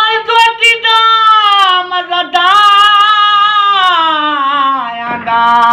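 An elderly man sings a Saraiki folk song unaccompanied, holding a long, high note. The note drops slowly in pitch about four seconds in, then he takes a breath and starts another held note near the end.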